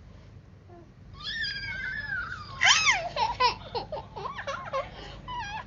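A baby babbling and squealing in high, sing-song sounds that rise and fall in pitch, starting about a second in.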